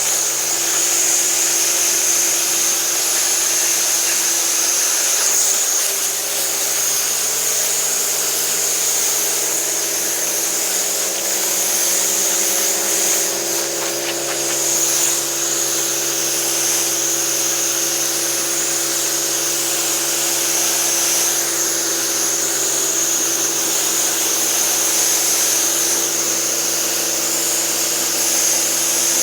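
Pressure-washing equipment running steadily: a machine hum under a constant high hiss of spraying water.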